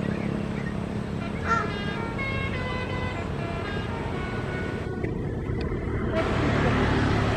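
Tour bus engine running steadily, with a multi-note telolet horn playing a short stepping melody for about two seconds. The engine grows louder about six seconds in.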